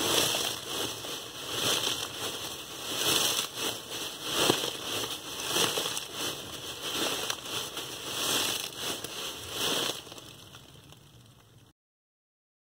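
Dry leaves in a plastic bag crackling and crunching as they are squeezed by hand, a foley imitation of footsteps on dry leaves. The crunches come in a slow, even rhythm, about one every second and a half, and stop about ten seconds in.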